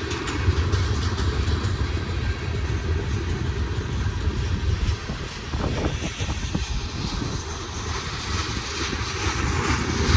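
Freight cars of a heavy manifest train rolling past, steel wheels running on the rails with a steady rumble.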